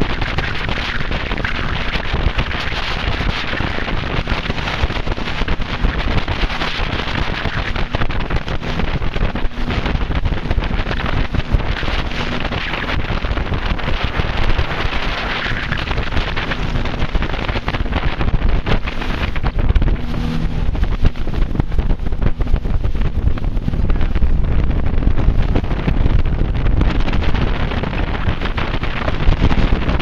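Wind buffeting the microphone aboard a moving fishing boat: a loud, steady rushing, with the boat's engine humming low beneath it.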